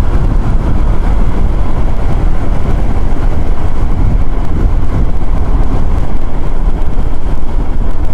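Steady low rush of wind and road noise on a Suzuki scooter riding at road speed.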